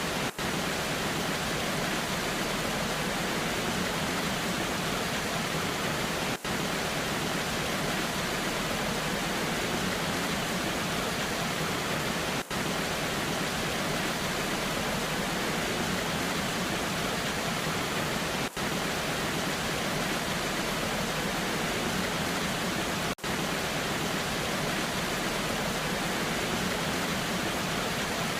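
Natural waterfall running in the rain: a steady, even rushing noise, broken by a momentary dropout about every six seconds.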